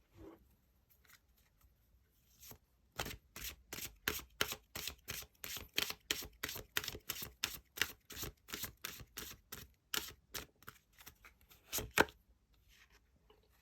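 Tarot cards being shuffled and handled by hand: a quick run of crisp card slaps and clicks, about three to four a second, starting about three seconds in. It stops near the end with one louder slap.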